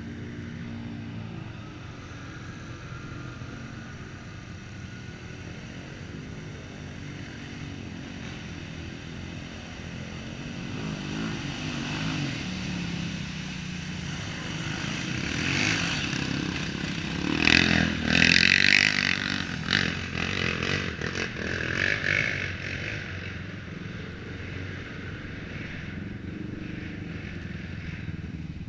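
ATV engines running on a muddy trail, getting louder past the middle of the stretch with a burst of clattering and knocks, then settling back to a steady run.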